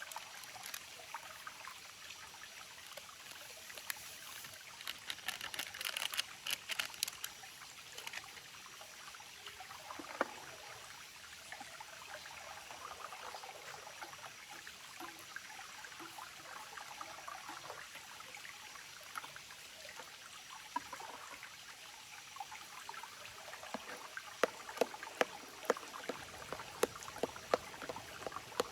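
Water trickling in a stream, with scattered sharp clicks and ticks that come in a cluster about five seconds in and again near the end.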